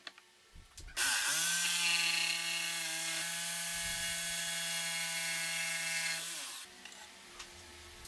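Small electric power tool switched on, spinning up quickly to a steady whine with a hissing edge, running for about five seconds, then switched off and winding down.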